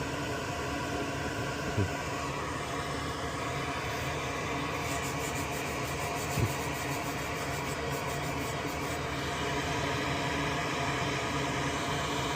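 A small electric fan running steadily at the workbench, with two light taps and, between about five and nine seconds in, a faint rapid scratching.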